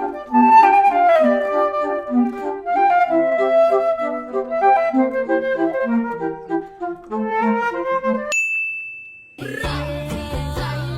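Background music: a light melody over short bass notes. About eight seconds in, the music stops for a single steady high beep lasting about a second. A different song starts soon after.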